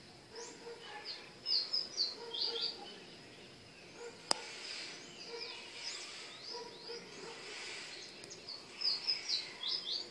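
A small songbird sings a phrase of quick, high, falling notes, and repeats the same phrase near the end, with fainter chirps in between. A single sharp click about four seconds in.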